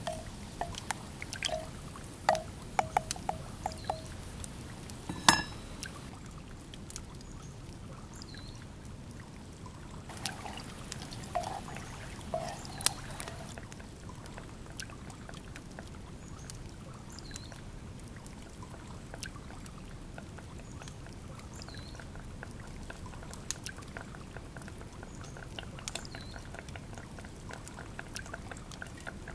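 Wooden spoon knocking against the rim of a clay cooking pot several times in the first few seconds, each knock with a short ringing tone, and one louder knock about five seconds in. After that comes a steady trickling, water-like wash with scattered crackles from the wood fire.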